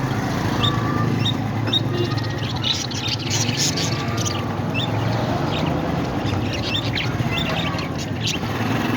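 Parrots chirping with many short, sharp calls coming in quick succession, over a steady low hum.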